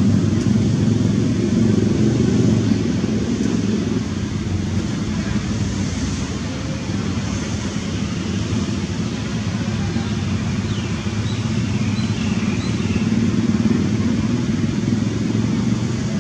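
Steady low engine rumble, like a motor vehicle running nearby, with a few faint high chirps about two-thirds of the way through.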